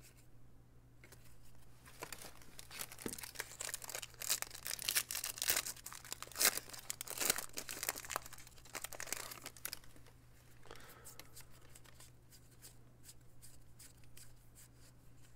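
The wrapper of a Panini Score football card pack being torn open and crinkled. A run of crackling rustles builds up, is loudest midway, then fades to lighter rustling near the end.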